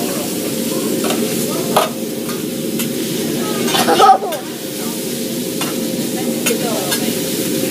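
Food sizzling steadily on a hibachi griddle, with several sharp metallic clicks scattered through it.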